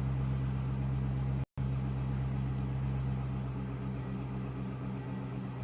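A 2007 Ford Expedition's 5.4-litre Triton V8 idling steadily, running smoothly now that a cracked ignition coil that caused misfires has been replaced. The sound cuts out for a split second about one and a half seconds in.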